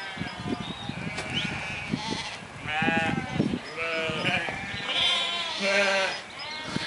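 A large flock of sheep bleating, several overlapping wavering calls, loudest between about 3 and 6 seconds in. Under the calls runs a patter of many hooves on a dirt road.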